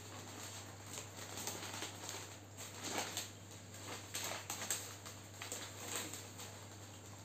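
Bouquet wrapping paper rustling and crinkling in the hands as the sheets are folded and pulled around a flower bouquet, in irregular crackles, over a low steady hum.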